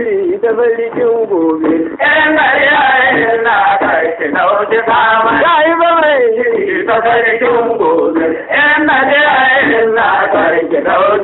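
Traditional Hausa song: a male voice singing long phrases that glide down in pitch, with brief breaks between phrases.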